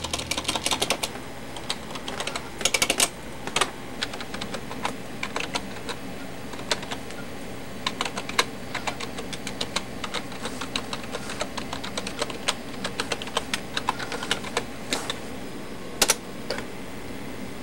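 Typing on a desktop computer keyboard: a string of key clicks, quick and dense at first, then irregular, with a louder key strike near the end.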